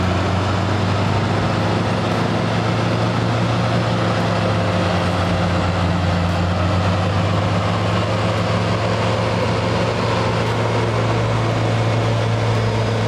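John Deere 850J crawler dozer's diesel engine running steadily under load while it pushes a stuck, loaded truck through deep mud: a constant deep drone.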